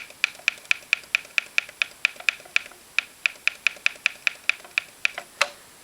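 Clock radio's time-set buttons being pressed over and over, a quick even run of sharp clicks about four a second with one short pause, as its clock is stepped back an hour.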